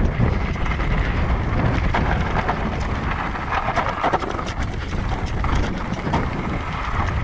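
Wind buffeting the microphone during a ride on a Voodoo Zobop-e electric mountain bike, a steady rumble with scattered clicks and rattles throughout.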